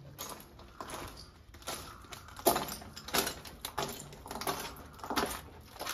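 Footsteps crunching on gritty debris over a concrete floor, in a steady walking rhythm that grows clearer and louder about halfway through.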